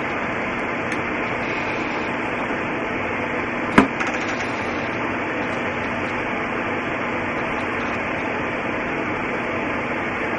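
Steady, even hiss, with one sharp click a little under four seconds in.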